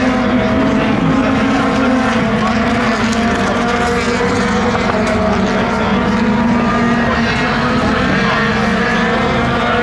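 Engines of several BTCC touring cars running at high revs as the pack races past, a steady blend of engine notes whose pitches shift as the cars change gear.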